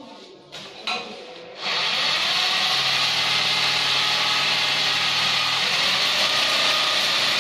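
A couple of light metal clinks at the chrome shower mixer valve, then, about a second and a half in, a sudden loud steady rush of water spraying from the shower into the bathtub, with a faint low hum under it for a few seconds.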